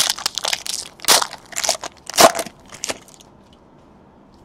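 Foil wrapper of a baseball card pack crinkling and tearing as it is ripped open, a run of crackling rustles with two louder crackles about one and two seconds in, stopping about three seconds in.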